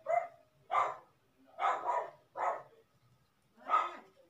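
A dog barking repeatedly, about six short barks with a longer pause before the last one.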